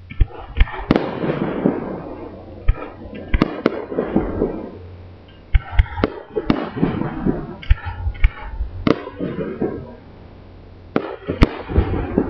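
Aerial fireworks shells bursting: clusters of sharp bangs, each trailing off in crackle and rumble, with short lulls between the volleys.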